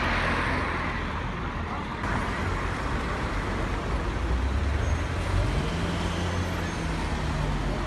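Road traffic: car engines running as cars drive slowly past close by. About five and a half seconds in, one engine note rises and then holds steady.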